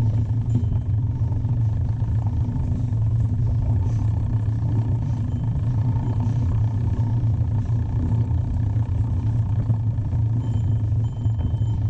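Steady low rumble of wind and riding noise on a mountain biker's camera microphone. Near the end a faint high whine comes in twice.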